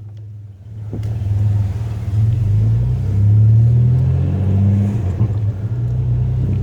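Truck engine running as the vehicle pulls away, its steady low hum rising in level about a second in.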